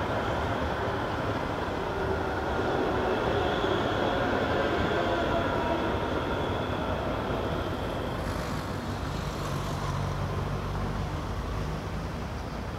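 City street traffic: a steady vehicle rumble with faint whining tones in the first half, giving way to a lower hum and a brief hiss in the second half.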